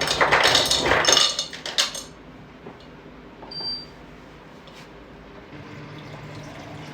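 Kitchen water splashing and dishes clattering for about two seconds, then stopping. A short high ring about halfway through.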